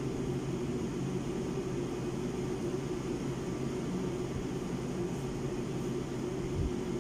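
Steady mechanical hum with a low drone and even hiss, of the kind a room air conditioner or fan makes.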